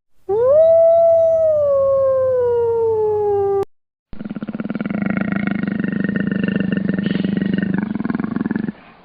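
Two wild-animal sound effects one after the other. First comes a long pitched call that rises quickly and then slowly falls, cut off about three and a half seconds in. After a brief gap comes a rough, pulsing call lasting about four and a half seconds.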